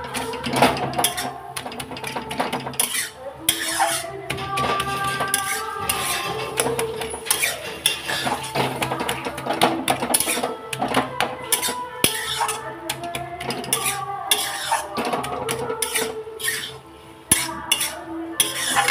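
A spatula scraping and clinking against a metal kadhai as saag with masoor dal is stirred and turned, in irregular strokes.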